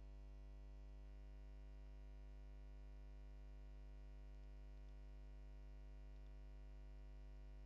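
Near silence with a steady low electrical hum, like mains hum.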